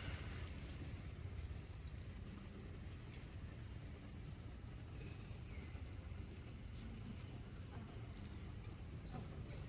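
Steady low outdoor rumble with scattered faint clicks and one faint short squeak about five seconds in.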